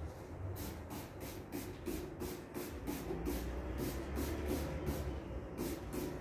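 Trigger spray bottle squirting over and over, short hissing sprays at about three a second, with a brief pause near the end.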